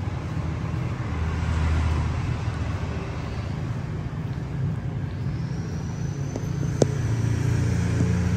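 Steady low rumble of road traffic, with one sharp click about seven seconds in.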